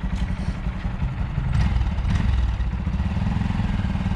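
2019 Honda Monkey 125's air-cooled single-cylinder four-stroke engine idling with a steady low pulse. About a second and a half in there are two clicks and the engine gets a little louder.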